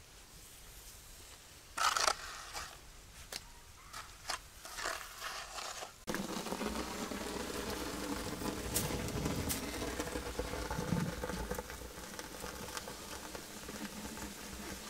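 A steel trowel scraping and tapping on wet cement spread over a brick oven dome, a few short strokes. About six seconds in it gives way to dry twigs and brush burning inside the brick oven, crackling steadily as the kindling catches.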